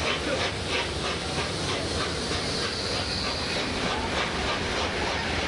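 Steam locomotive LNER Peppercorn A1 60163 Tornado working a train, heard from a carriage window: rhythmic exhaust chuffs about three a second over the rumble of the coaches on the rails, the chuffs fading near the end. A brief high steady squeal sounds a little past the middle.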